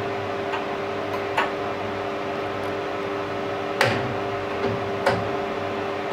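A steady machine hum under a few light clicks and knocks as a CNC tool holder's arbor is pushed and seated into its pocket on the tool-changer turret. The loudest knock comes a little under four seconds in.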